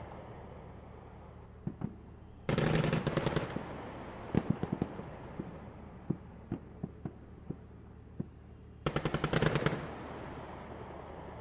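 Battle sound effects: two bursts of machine-gun fire, each about a second long, with scattered single shots cracking between them over a steady low rumble.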